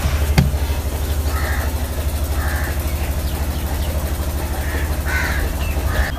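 Crows cawing several times, four short calls over a loud, steady, low drone that throbs rapidly and evenly.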